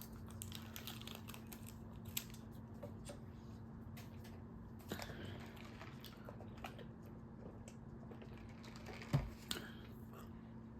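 Faint chewing and eating sounds close to the microphone, with scattered small clicks and a single louder knock about nine seconds in.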